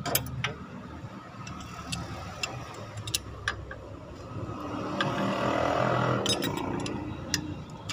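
Irregular light metallic clicks and taps of a wrench working the bolts of a new water pump on an Isuzu 4JA1 diesel engine, over a steady low hum. A broad swell of background noise rises and fades about five to seven seconds in.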